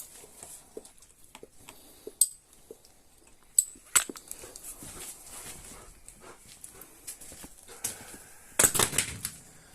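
Dog moving about and settling, with a few sharp clicks scattered through, then a short burst of rapid clicks and rustling near the end.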